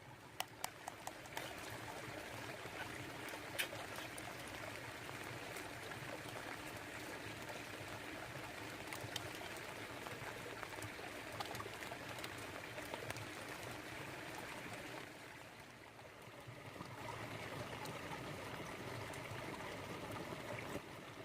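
Brook babbling steadily, with a few light clicks in the first couple of seconds and a brief dip in level near the three-quarter mark.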